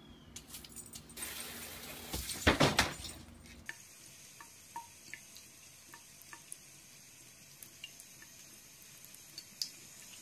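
A few loud rustling and knocking noises at first. Then, from about four seconds in, a bathroom tap runs a thin stream into a sink: a steady faint hiss with small drip-like ticks.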